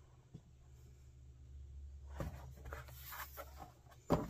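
Cardboard box being handled and slid over a stainless-steel wire grill: faint scraping and rustling about two seconds in, then a sharp knock near the end.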